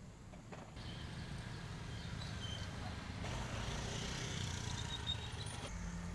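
A motor vehicle running with a steady low rumble; the noise grows louder about a second in and again a little past three seconds.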